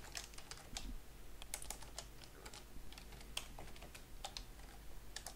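Computer keyboard typing: quick, irregular keystroke clicks, fairly faint.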